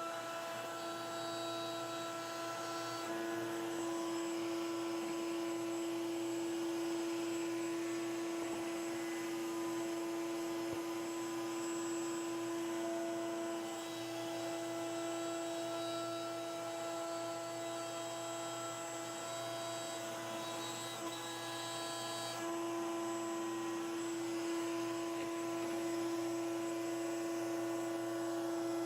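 Router motor running steadily at high speed, a constant whine that shifts slightly a few times.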